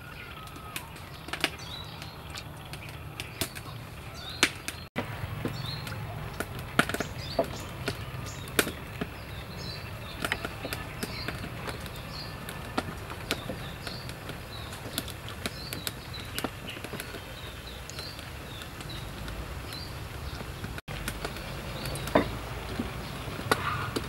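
Rolled banana-dough buns deep-frying in a wok of hot oil: a steady sizzle with irregular sharp pops and crackles.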